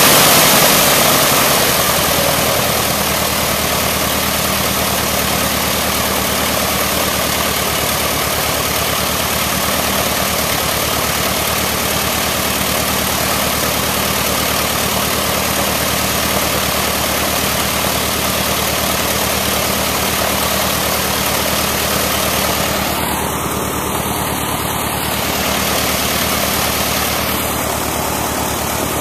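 Fuel-injected 180 hp Lycoming IO-360 four-cylinder aircraft engine turning the propeller at a steady idle, on the first run of the newly installed engine. It is a little louder at first and eases down about two seconds in.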